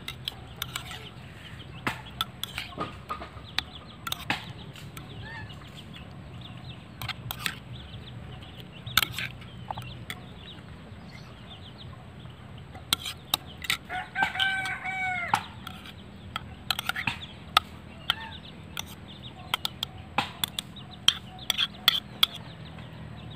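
A rooster crows once, about fourteen seconds in, with chickens clucking now and then. Throughout, a spoon clicks and scrapes against a bowl and the fish as chopped filling is spooned into a milkfish.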